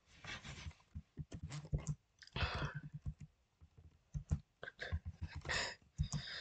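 Computer keyboard typing: irregular key clicks, with a few short soft hisses between them.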